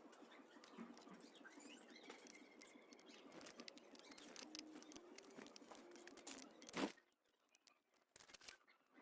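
Small birds at a seed feeder: faint chirps and light scattered pecking clicks, with one louder sharp knock about seven seconds in, after which the sound drops almost to nothing.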